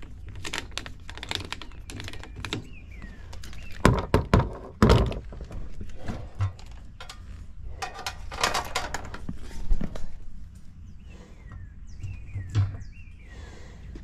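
Knocks and clatter of a condenser fan motor being handled and remounted on its bracket, loudest in a run of heavy knocks about four to five seconds in and another run around eight to nine seconds.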